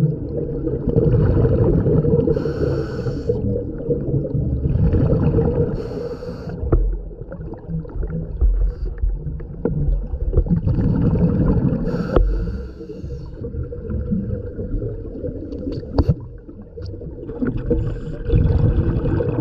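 Scuba diver breathing through a regulator underwater: hissing inhalations and gurgling exhaust bubbles, a breath every few seconds with a longer pause in the middle, over a constant low water rumble. A few sharp clicks come through as well.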